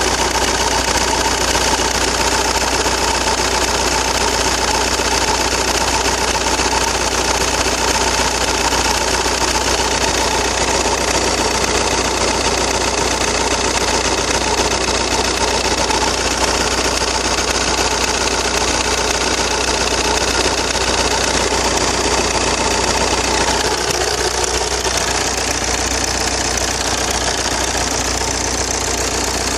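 Opel 1.9 CDTI four-cylinder common-rail diesel engine running steadily at idle. It is loud with the microphone held right up to it, and its tone changes slightly near the end.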